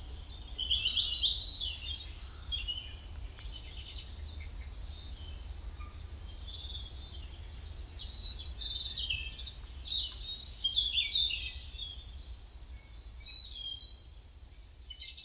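Small songbirds singing and chirping in a garden, in short warbling phrases that come thickest about a second in and again around ten seconds in, over a steady low rumble.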